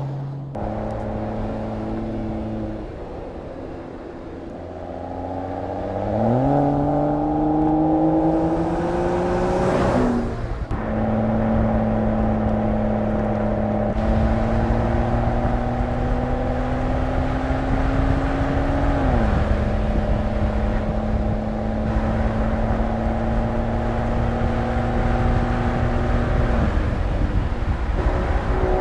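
Mercedes-AMG GLE 53 Coupe's 3.0-litre turbocharged inline-six running under way. The pitch climbs about six seconds in, then holds steady and creeps up slowly, dropping near twenty seconds in and again near the end as the gearbox shifts, over a steady low road rumble. There is a brief noisy burst about ten seconds in.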